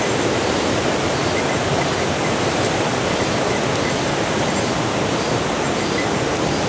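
Steady rush of white water from a mountain river gorge and waterfall.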